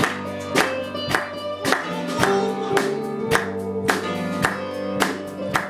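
Live gospel band playing an instrumental break: electric guitars and bass over a steady beat of sharp hits about twice a second.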